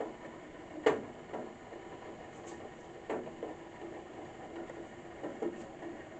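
Irregular taps and knocks of wild birds feeding on cake at a bird table, with two louder knocks about a second and about three seconds in.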